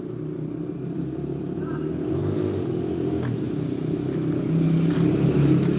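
An engine running with a low, steady hum that grows gradually louder.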